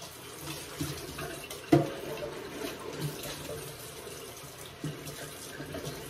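Kitchen tap running into a sink while a container is rinsed out, with a few knocks of the container against the sink, the loudest about two seconds in.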